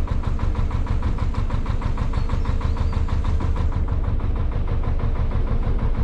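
Narrowboat's old inboard diesel engine running steadily under way, a low rumble with an even, rapid chugging beat.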